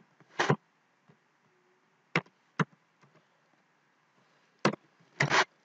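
Computer keyboard keys being pressed one at a time while typing a short word: about six separate, sharp clicks at irregular intervals.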